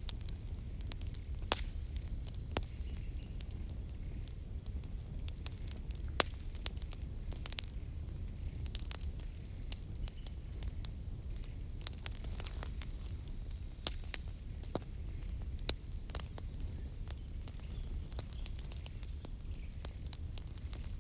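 Wood fire crackling: irregular sharp pops and snaps, a few a second, over a steady low rumble.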